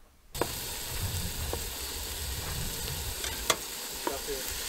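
Ground beef sizzling as it browns in a pot on a gas camp stove, stirred with a utensil that clicks sharply against the pot a few times. The sizzle starts suddenly just after the beginning.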